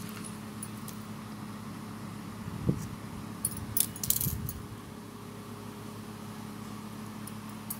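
Handling noise of crochet work: a soft knock about three seconds in, then a quick cluster of light clicks, over a steady low hum.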